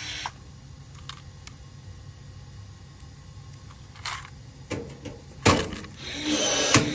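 Scattered clicks and knocks of a tool being handled, a loud knock about five and a half seconds in, then the Milwaukee cordless rivet gun's motor running for about a second near the end with a sharp snap as a rivet is set.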